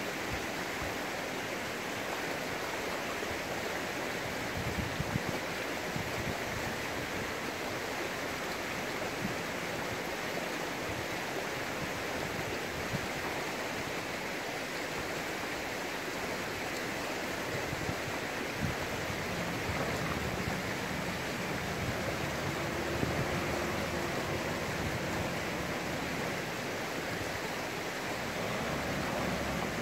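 Steady rushing noise of running water, even and unbroken, with a few faint low sounds rising and falling in the second half.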